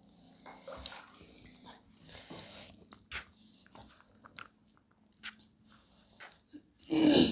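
Close-miked mouth sounds of people eating chicken: scattered wet clicks and chewing, with a short loud burst near the end.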